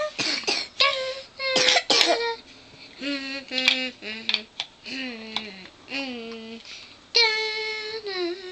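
A young boy humming and singing wordlessly in short pitched notes, some held and some sliding. There are a few short harsh throat noises in the first two seconds.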